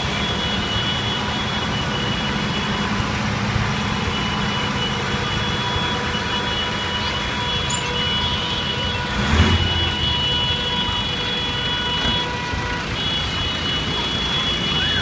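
Diesel engines of a column of farm tractors running as they drive slowly past. A thin high-pitched tone sounds over them, breaking off now and then, and there is a brief louder burst about nine seconds in.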